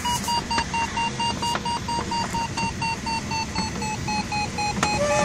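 Glider variometer beeping rapidly, about five short beeps a second, its pitch sagging a little and then rising again. The fast beeps signal that the glider is climbing in a thermal, at about two metres a second. Steady airflow hiss over the cockpit lies underneath.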